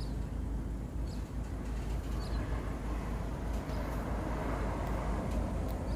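Steady low rumble of a car heard from inside the cabin, with a hiss that swells a little around the middle and a few faint clicks.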